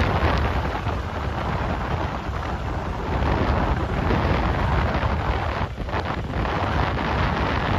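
Strong wind buffeting the microphone, a loud steady rush with a heavy low rumble that eases briefly about six seconds in.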